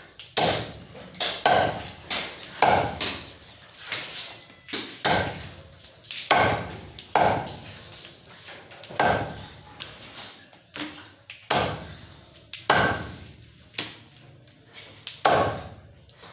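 Butcher's chopper striking through goat legs, a run of heavy chops about once a second, each a sharp hit with a short ring after it.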